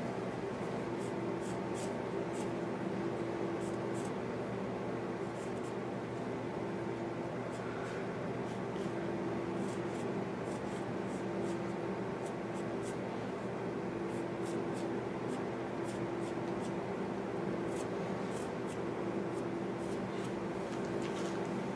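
Pencil scratching in short strokes across a carved white cedar decoy body, over a steady room hum.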